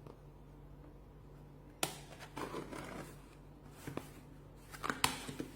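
Shipping package being opened by hand: a sharp snap about two seconds in, then rustling of the packaging and a few scattered clicks.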